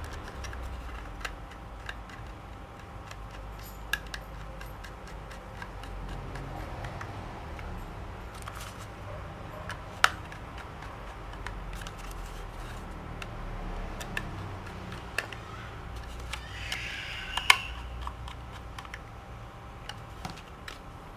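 Irregular small clicks and taps of hands working on a laptop's 2.5-inch drive and its small screws and fittings. There are louder sharp clicks about halfway through and again near the end, with a brief scrape just before the last one, over a low steady hum.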